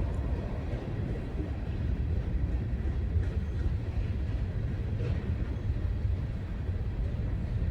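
CSX freight train rolling past, a steady low rumble of wheels on rail with a few faint clicks.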